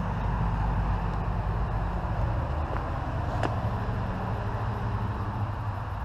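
Steady low rumble of street traffic, with a single faint click about three and a half seconds in.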